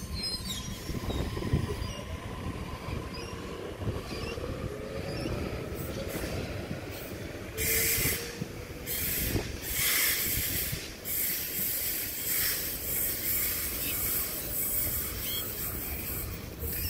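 Sydney Trains Waratah double-deck electric train pulling out of the platform: the traction motors whine rising in pitch as it gathers speed, then the wheels rumble past with several short bursts of high-pitched squeal about eight to eleven seconds in, fading as the train leaves.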